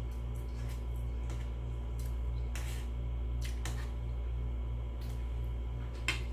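Eating sounds: a few short crunches and mouth clicks of chewing, the sharpest near the end, over a steady low hum.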